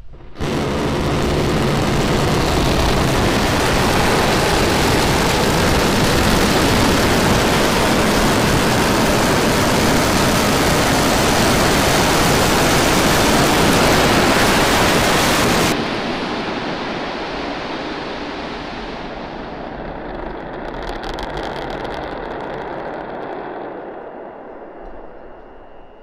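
Starship SN10's Raptor rocket engines firing for the landing burn: a loud, steady rushing noise that starts abruptly about half a second in. It cuts off suddenly about 16 seconds in as the engine shuts down at touchdown, leaving a lower rumble with some crackling that fades away over the next ten seconds.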